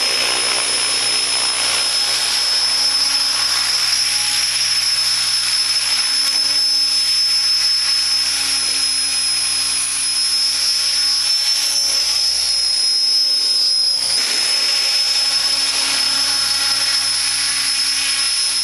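Align T-REX 600 ESP electric RC helicopter running, its rotors making a steady whooshing noise over a high-pitched electric motor whine. The whine rises slightly in pitch about two thirds of the way through.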